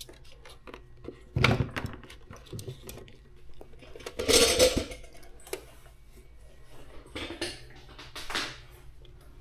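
Handling noises at a workbench: light knocks and plastic rustling as a hat and vinyl-covered wire are moved and set in place at a sewing machine, with a louder rustle about four and a half seconds in. The sewing machine is not running.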